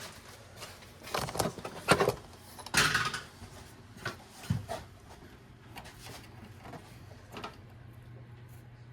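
Sharp clicks and knocks of hood latch parts and cables being handled and fitted, loudest about two and three seconds in, followed by quieter fiddling over a faint steady hum.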